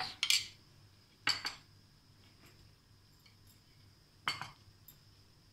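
A spoon clinking and scraping against a glass serving bowl and dishes while mango shake is spooned over fruit-cake pieces for a trifle: three short bursts of clinks, one right at the start, one about a second and a half in, and one just past four seconds.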